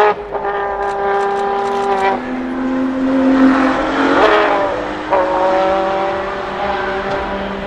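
Ferrari V12 supercar engines accelerating hard, a sharp bang at the very start, then the engine note climbing through the gears with upshifts about two seconds in and again about five seconds in.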